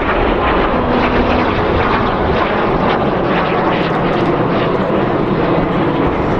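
Canadair CT-114 Tutor jet trainers, each driven by a single turbojet, in flight: a loud, steady jet rush with no sharp breaks.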